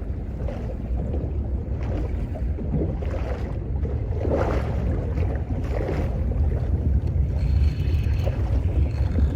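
Small boat on the water: a steady low rumble with wind and water noise, swelling briefly a few times.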